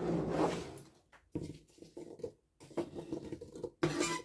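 Diced apple chunks slid off a plastic cutting board into a pot: a scraping rustle in the first second, then a few scattered soft knocks and patters as the pieces drop.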